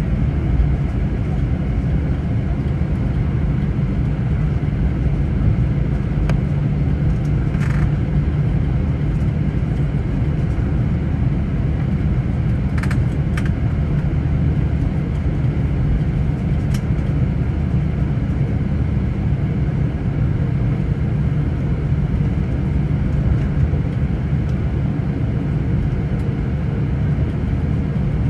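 Jet airliner cabin noise while taxiing: a steady low rumble of engines and rolling, with a few faint clicks.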